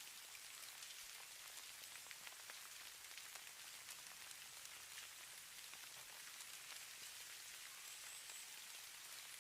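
Falling snow landing on surfaces: a faint, steady fine patter of many tiny ticks over a soft hiss.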